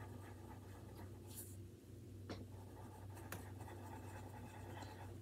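Pencil drawing on paper: faint scratching strokes, a few short ones standing out, over a low steady hum.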